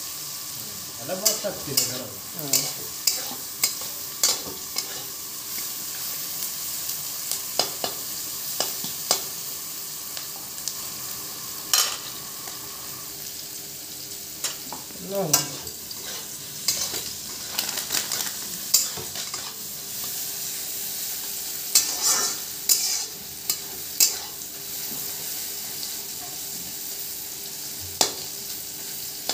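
Sliced green capsicum and garlic sizzling in hot oil in a metal wok, with a steady hiss. A metal spatula scrapes and knocks against the pan at irregular moments as the vegetables are stirred.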